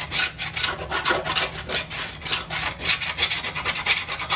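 Hand scraper scraping caked, dried grass off the underside of a Toro Timemaster mower deck in quick, repeated strokes.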